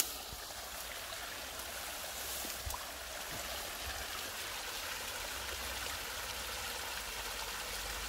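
Small waterfall splashing steadily over a pile of rocks, a constant rush of falling water.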